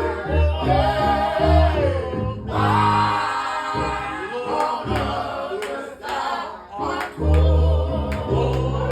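Gospel choir singing with a band: low bass notes under the voices and a few sharp drum hits in the second half.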